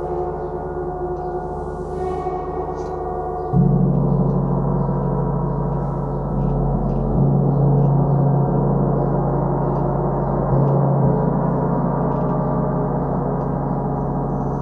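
Handmade 43-inch bronze gong played with a felt-headed mallet, ringing in a deep, sustained wash of many overlapping tones. A stroke about three and a half seconds in makes it suddenly louder and deeper, and the sound swells again with further strokes before ringing on.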